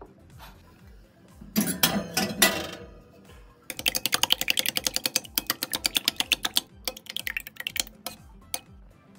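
Metal spoon beating egg whites in a ceramic bowl: rapid, even clicks of the spoon striking the bowl, thinning to scattered clicks near the end. Before the beating, a short burst of louder noise, with faint background music throughout.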